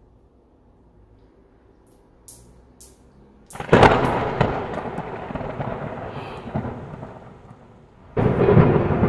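A sudden, loud thunderclap sound effect crashes in about a third of the way through, then rumbles and fades over about four seconds. Near the end, music starts abruptly and loudly.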